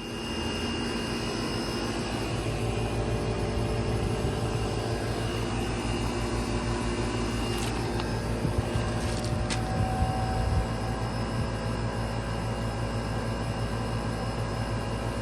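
Trane XV18 variable-speed central air conditioner's outdoor unit running steadily: the condenser fan's airflow and the inverter compressor's hum, with several steady tones on top. A couple of brief high ticks come about midway.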